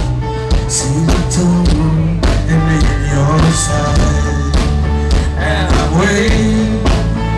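Rock-style music with a singing voice over a steady drum beat.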